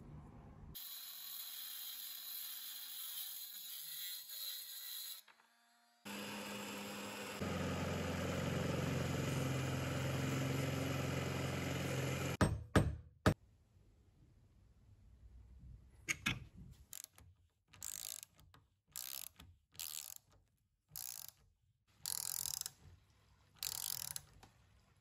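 A drill press runs steadily as it bores down into a wooden tool handle through its metal ferrule, then stops about twelve seconds in. After a few sharp clicks, a ratchet wrench clicks in a series of short strokes, tightening a fitting on the handle.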